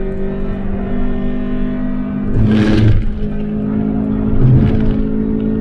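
Daihatsu Applause's 1.6-litre four-cylinder engine running under load at fairly steady revs, heard from inside the cabin. Brief bursts of rushing noise come about two and a half and four and a half seconds in.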